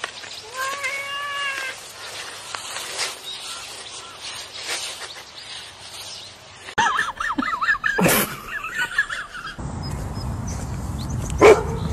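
Tabby cat meowing: one long meow about half a second in, and later a run of short, wavering cries. Near the end, over a steady rush of wind on the microphone, a dog gives one short, loud bark.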